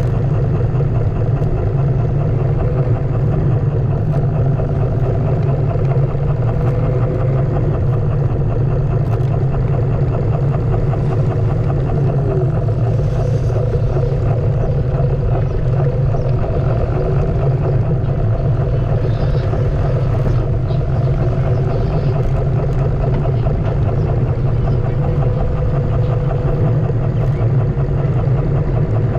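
Onewheel electric board riding on city pavement: a faint hub-motor whine that drifts up and down in pitch with speed, over a steady loud low rumble of wind and road noise.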